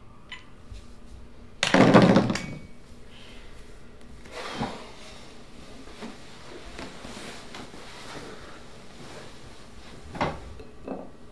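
A loud knock with a clatter about two seconds in, then softer knocks and rustling, and a short sharp click near the end: household handling noises in a small room.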